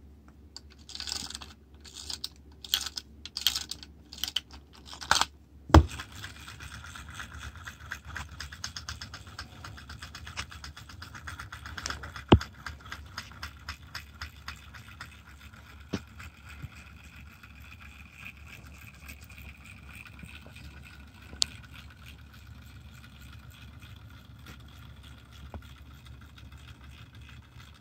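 Vintage tin wind-up hatching-chick toy: its clockwork being wound by the key in a series of short ratcheting turns, then a sharp knock about six seconds in, after which the clockwork runs with a steady rapid mechanical clatter, broken by a few sharp knocks.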